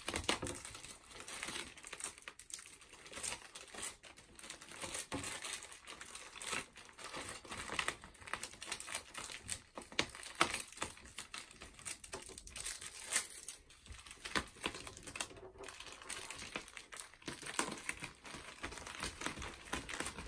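Plastic poly mailer crinkling and rustling in irregular crackles as a rolled-up jacket is pushed and pressed into it by hand.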